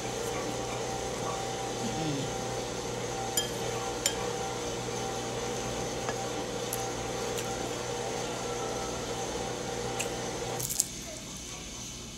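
A fork clinking a few times against a ceramic bowl while noodles are eaten, over a steady machine hum that cuts off suddenly near the end.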